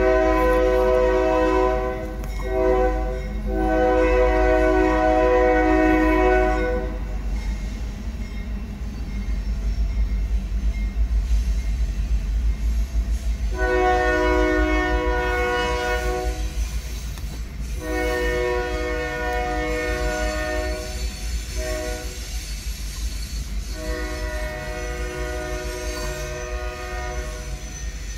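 Union Pacific freight diesel locomotive's air horn blowing at a grade crossing: a long blast, a short one and a long one in the first seven seconds, then after a pause the full crossing signal of long, long, short, long. Underneath, a steady low rumble of the locomotives and freight cars rolling past.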